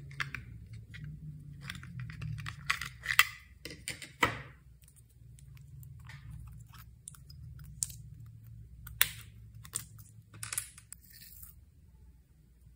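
Slime being squished and stretched by hand, with irregular sticky pops and crackles and a few sharper pops in between.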